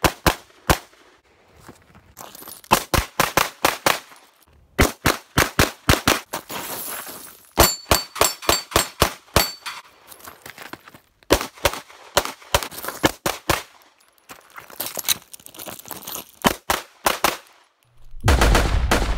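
Strings of rapid pistol shots fired in quick bursts, with steel plate targets ringing from hits. Near the end the shots stop and a loud low rumble starts.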